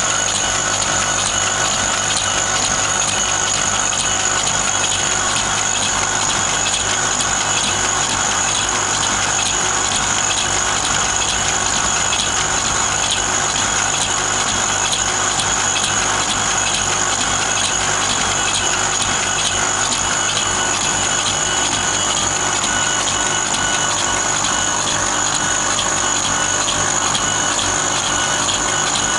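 CNC stone-engraving machine running as its head scans back and forth over a granite slab: a steady mechanical noise with a high whine and fine rapid ticking.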